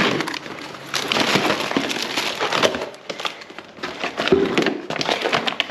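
Rigid plastic food packs and trays crackling and clattering as they are handled and sorted by hand, with a dense run of sharp little clicks and rustles.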